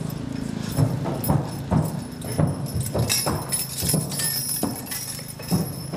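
Hooves of a team of draft horses thudding and scuffing in deep sand as they walk and pull a load: about ten irregular dull thuds over a steady low hum.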